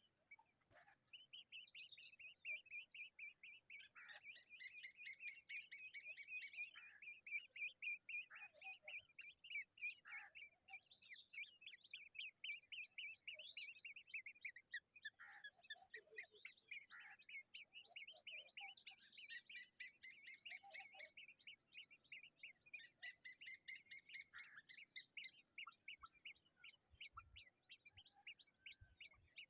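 Nestling birds begging for food: faint, rapid, high-pitched cheeping, many short notes a second in a near-continuous stream.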